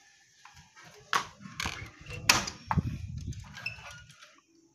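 A wooden door with a brass lever handle being unlatched, opened and passed through: several sharp clicks and knocks, the loudest a little after the middle.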